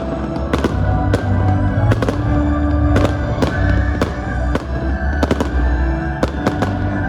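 Fireworks display: aerial shells bursting in a steady string of sharp bangs, about two a second, some in quick pairs, over loud music with sustained tones and a deep bass rumble.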